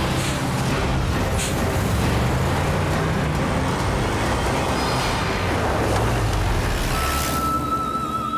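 Jeep engine running as it drives, a steady low rumble from a cartoon sound effect. A thin steady high tone joins about seven seconds in.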